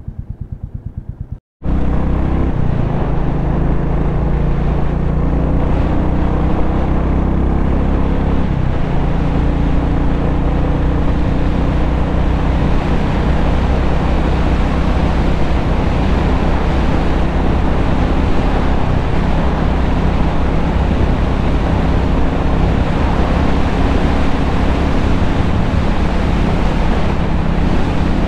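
Motorcycle engine with an even pulsing beat, then after a sudden break it runs steadily under way with heavy wind rush over the microphone. The engine note shifts about eight seconds in.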